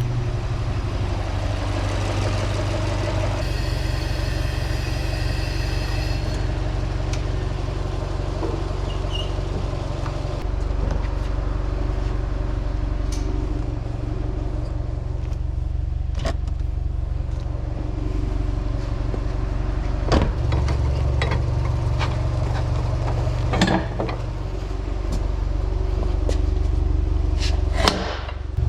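Car engine running steadily at idle, a constant low hum with a few sharp clicks and knocks over it.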